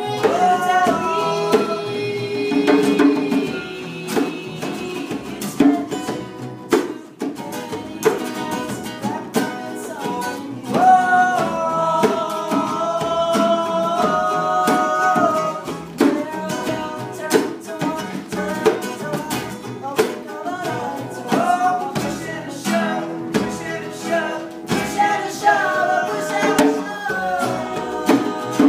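Live acoustic band music: a voice singing over acoustic guitar and percussion.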